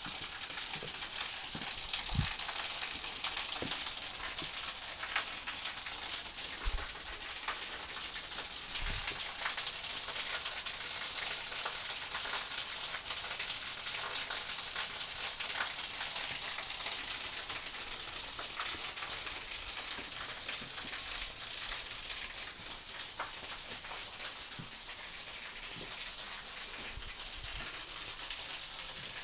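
Small waterfall splashing onto rocks: a steady, hissing rush of falling water with fine crackle in it, and a few soft low thumps in the first ten seconds.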